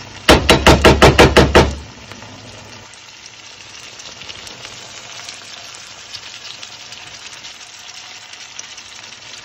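A wooden spoon rapidly stirring and knocking in a frying pan, about ten loud quick clatters in the first second and a half. Then a pan of pilchards and vegetables in palm oil sizzling steadily and quietly.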